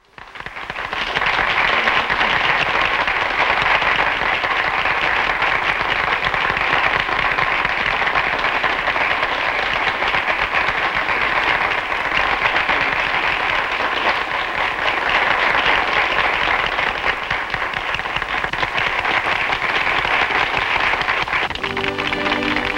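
Audience applauding: the clapping swells up within the first second and then holds steady. Music starts near the end.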